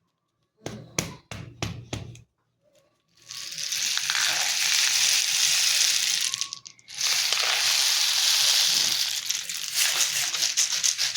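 Homemade rain stick, a cardboard tube studded with toothpicks and filled with popcorn kernels: after a few knocks of handling, it is tipped and the kernels cascade through with a steady rushing hiss for about three seconds, a brief pause, then a second long cascade. Near the end it is shaken in quick strokes like a rattle.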